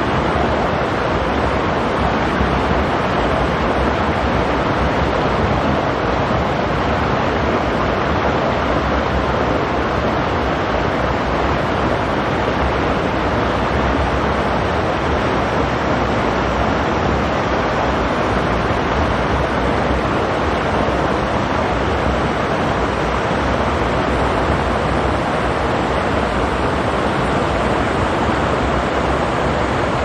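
Mountain stream rushing over rocks: a steady, unbroken rush of water.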